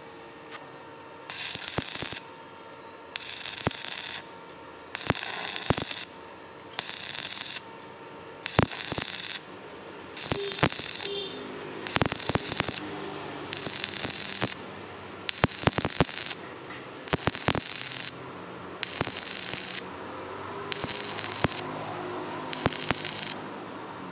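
Stick (arc) welding with a coated rod on thin-wall square steel tube: the arc crackles and sputters in about a dozen bursts, each close to a second long, with short pauses between as the arc is struck and broken again and again.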